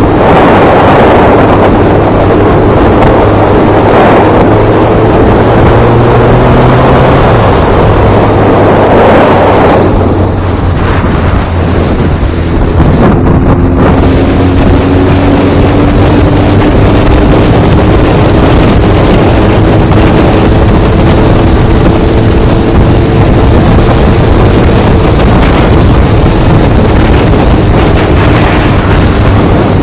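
Motorcycle engine running under way, its note climbing slowly, easing off about ten seconds in and then climbing gradually again, under heavy wind noise on the microphone.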